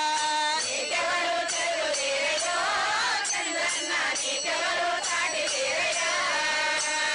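A group of women singing a Telugu praise song in chorus, with a gliding, rising and falling melody over repeated sharp rhythmic beats.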